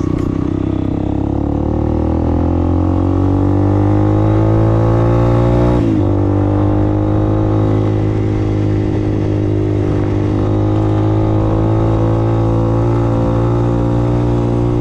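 Motorcycle engine heard from the rider's seat, its pitch rising as it accelerates, a short break about six seconds in at a gear change, then running steadily at cruising speed.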